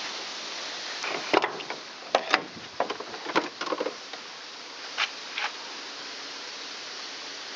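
A run of irregular clicks and knocks, about a dozen of them bunched between one and five and a half seconds in, some with a short ring, over a steady hiss.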